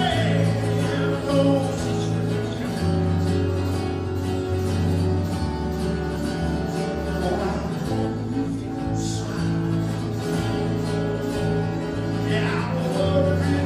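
Live acoustic duo: a strummed acoustic guitar over sustained bass notes and melody from a two-handed tapped, Chapman Stick-style touch instrument. A male voice sings briefly at the start and again near the end.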